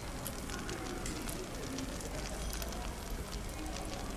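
Fireplace crackling with a stream of sharp little pops and snaps, over the indistinct murmur of cafe chatter.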